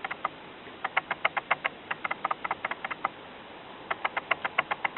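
A sick rescued kitten's mouth making rapid wet clicking, smacking sounds, several a second, in three runs with short pauses between them.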